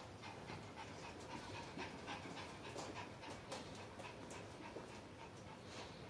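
Small dog panting, a quiet run of short breaths a few times a second.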